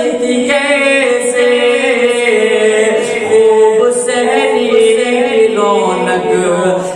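A man singing an Urdu naat into a microphone, drawing out long held notes whose pitch slowly rises and falls.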